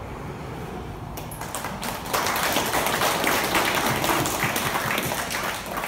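Audience applauding: a few scattered claps at first, swelling into full applause about two seconds in and thinning out near the end.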